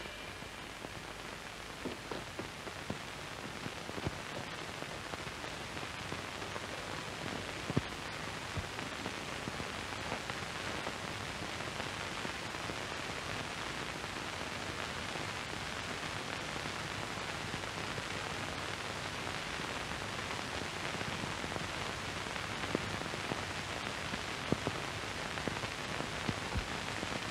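Steady hiss with scattered faint clicks and pops: the surface noise of an old film soundtrack with no dialogue or music on it.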